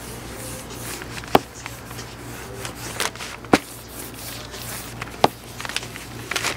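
Cobbler's hammer tapping glued iguana leather down onto the boot piece: three sharp taps about two seconds apart, with a few lighter knocks and rubbing between them. A steady low hum runs underneath.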